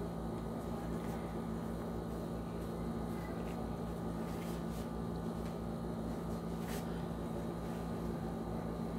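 Steady low machine hum, with a couple of faint paper rustles as a paper collar pattern is handled on the cloth.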